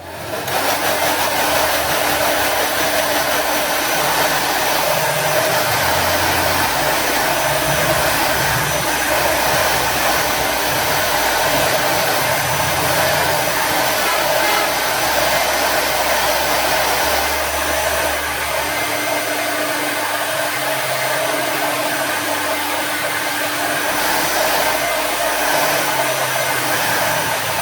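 Hot air gun blowing steadily, heating the adhesive to lift a phone's touch screen. It switches on abruptly.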